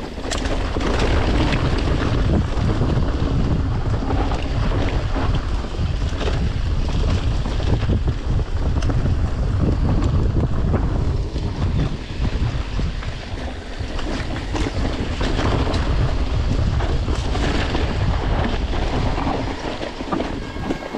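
Wind buffeting the microphone of a camera on a moving mountain bike, a loud, steady rumble with hiss over it and a few brief knocks as the bike runs over rough trail.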